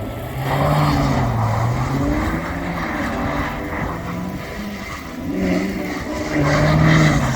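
A car engine revving up and down repeatedly, with the hiss of tyres spinning, as a car drifts in snow. It is loudest about a second in and again near the end.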